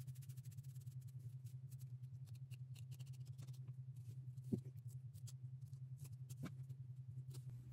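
Faint scratching and clicking of a plastic rat-tail comb working through wig hair at the hairline, with a few small taps, over a steady low hum.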